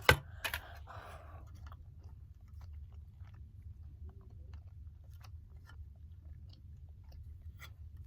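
Plastic parts of a toy airplane model being handled and pressed together: a sharp click right at the start and another about half a second in, then faint scattered clicks and rustles over a low steady hum.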